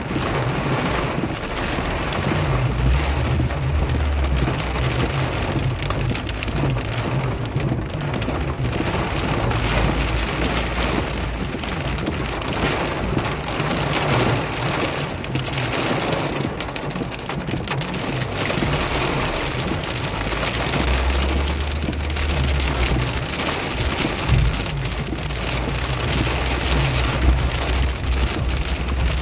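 Car driving in rain: a low engine and road rumble that swells and eases under a steady hiss of rain and tyres on the wet road.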